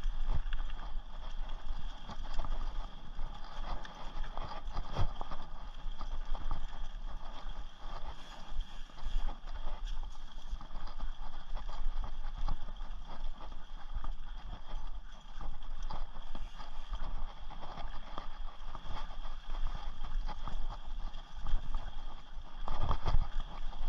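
Rocky Mountain Thunderbolt mountain bike ridden fast on a dirt forest trail: tyres on dirt and a constant rattle of clicks and knocks from the bike over bumps and roots, over a steady low rumble.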